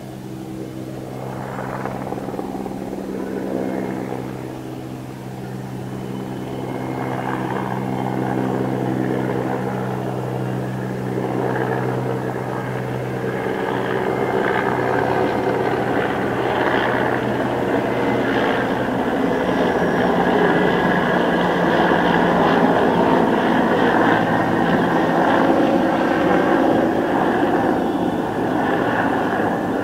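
Mil Mi-17 helicopter flying over, its rotor beat and turbine noise growing steadily louder and peaking in the second half. A steady low hum underlies the first half and fades out past the middle.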